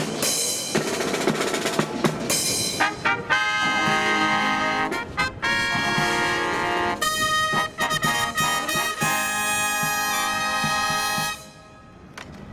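A marching brass band with drums plays a fanfare. Drum strokes and short brass blasts come first, then long held brass chords, and the final chord cuts off about eleven seconds in.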